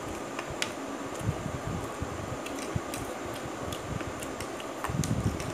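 Two people eating instant noodles with forks: scattered light clicks of forks against plates and soft chewing sounds, over a steady background hiss.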